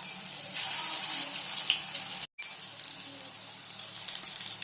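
Oil sizzling on a hot dosa tawa as pinwheel samosas shallow-fry. The sizzle grows louder about half a second in, cuts out abruptly for a moment just after two seconds, then carries on softer.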